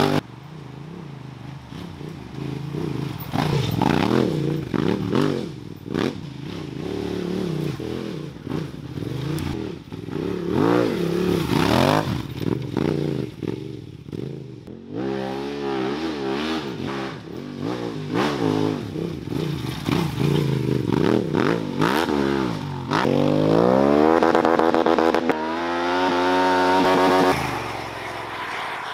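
Honda Transalp 750 motorcycle's parallel-twin engine revving hard and dropping back again and again under full throttle. Near the end the revs climb in one long rise and hold high before falling away.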